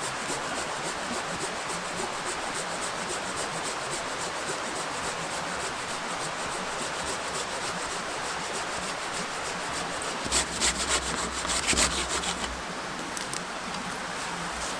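A hand tool scraping steadily on a piece of willow wood, with a burst of louder sharp knocks and a low rumble about ten seconds in.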